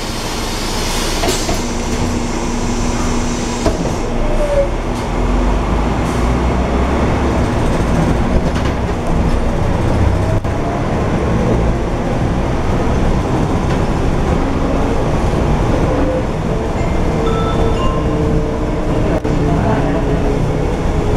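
Volvo B12M bus's diesel engine and drivetrain heard from inside the cabin as the bus pulls away from a stop. A short hiss of air comes about a second in while the doors close, and the low engine drone grows about four seconds in, with a steady whine over it that shifts slowly in pitch later on.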